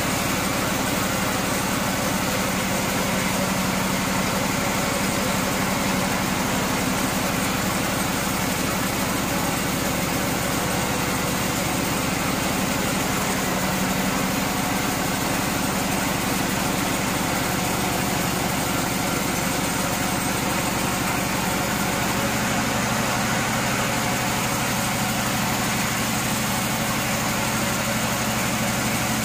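Band sawmill running steadily, its blade sawing lengthwise through a burled log.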